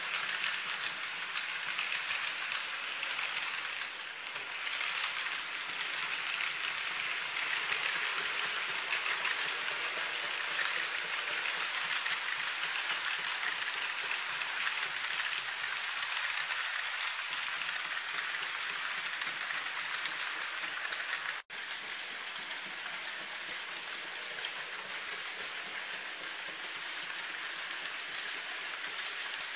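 HO scale model trains running on layout track: a steady, dense clatter of small metal wheels on the rails, cut off for an instant about two-thirds through.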